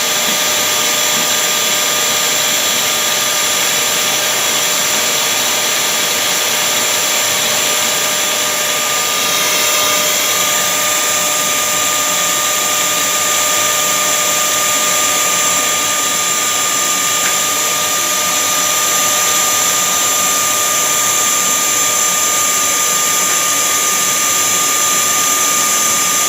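Vacuum cleaner running steadily with a high motor whine, which shifts slightly about nine seconds in.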